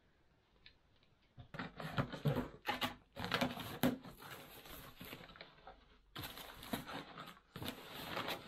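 Parcel tape being torn off a cardboard box and the cardboard flaps opened, then crinkly paper packing rustled inside. It comes in two stretches of irregular crackling and tearing, starting about a second and a half in, with a short lull in the middle.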